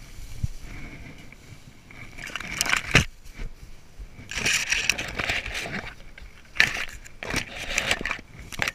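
Dry raffia grass rustling and crackling as gloved hands bunch it against camouflage netting, in several handfuls, with a few sharp clicks. The loudest click comes about three seconds in.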